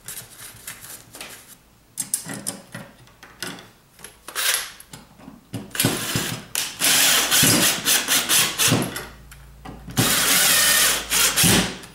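Cordless drill driving two screws that fasten a metal backing plate to an electrical junction box: the motor runs in two long bursts, one about halfway in and one near the end, with clicks and rattles of handling before them.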